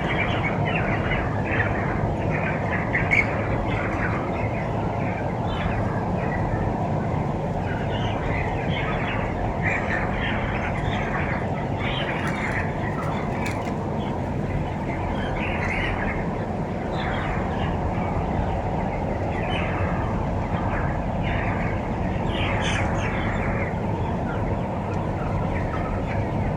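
A flock of poultry on a poultry farm chirping and calling, many short calls overlapping throughout, over a steady low background noise.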